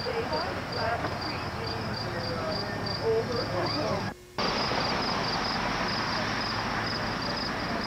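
Crickets chirping steadily, about two chirps a second, over faint distant voices. The sound drops out for a moment about four seconds in.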